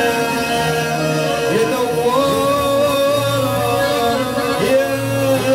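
Live Libyan popular music: an electronic keyboard plays a gliding melody over hand percussion, with a male voice singing.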